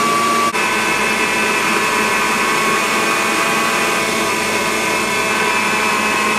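Kenwood Chef stand mixer running, its beater creaming butter, sugar and egg in a plastic bowl: a steady motor whine with a brief break about half a second in.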